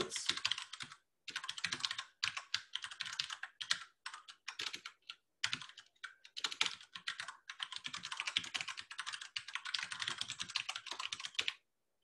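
Fast typing on a computer keyboard, in bursts of key clicks broken by brief pauses, stopping just before the end.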